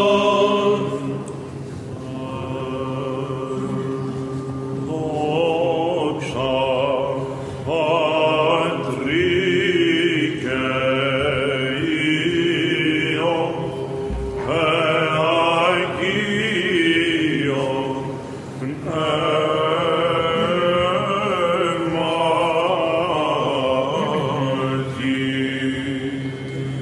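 Byzantine chant: cantors sing a slow, drawn-out melodic line on long held syllables over a steady, unbroken ison drone.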